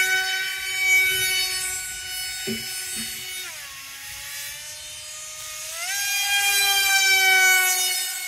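Electric motor of a battery-powered RC model Su-30 jet in flight, a steady high whine. About three and a half seconds in the motor slows, dropping in pitch and going quieter, then speeds up again near six seconds in. Two soft knocks come just before the slowdown.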